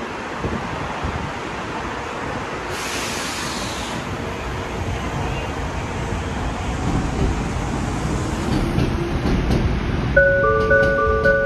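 Steady rumble and hiss of an elevated metro station platform, with a train standing nearby and another on the tracks beyond. About three seconds in there is a brief hiss. Near the end, an electronic signal sounds as a few overlapping held two-note tones.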